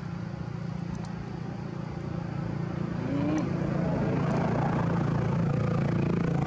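A motor engine hum runs steadily and grows louder about three seconds in.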